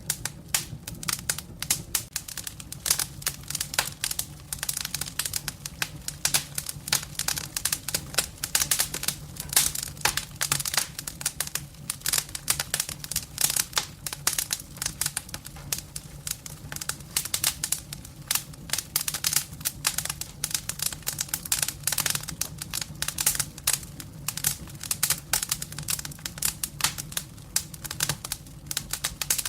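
Firewood burning in a fireplace, crackling with dense, irregular pops and snaps over a steady low hum.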